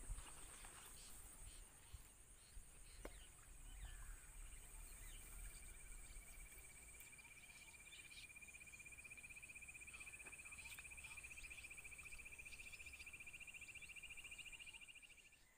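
Faint insects trilling at the pond's edge: a high, shrill, steady trill throughout, joined about three seconds in by a lower pulsing trill that rises slightly in pitch. Both trills stop abruptly near the end. There are a few faint clicks in the first few seconds.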